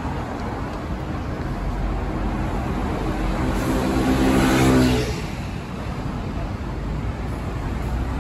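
Busy city-road traffic noise, with a motorcycle's engine passing close by: it grows louder from about two seconds in, peaks near the middle and drops away quickly.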